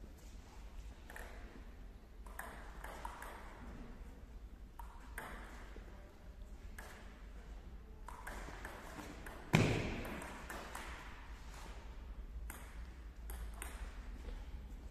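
Table tennis ball clicking off paddles and the table during rallies, short sharp ticks at an irregular pace. About two-thirds of the way in comes a single much louder thud that rings on in the hall.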